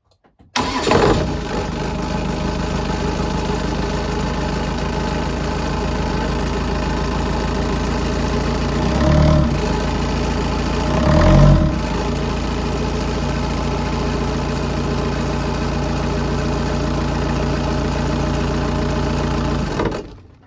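Volvo Penta MD22 four-cylinder marine diesel starting and then idling steadily with its newly replaced timing belt, which the owner says has worked just fine. There are two brief swells in engine sound about nine and eleven seconds in, and it cuts off just before the end.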